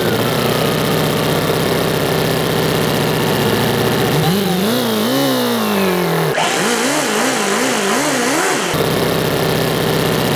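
Toyan FS-L400 four-cylinder four-stroke model engine with a see-through block, running loudly just after it started right up. Its pitch wavers up and down repeatedly for several seconds in the middle.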